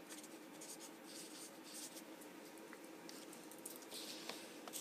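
Faint scratching of a marker writing figures on paper, with light handling of small tools near the end.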